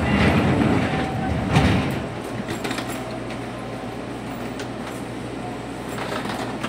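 Seibu 2000 series train standing at a platform: a loud stretch of noise with a sharp knock about a second and a half in, then the steady low hum of the stationary train.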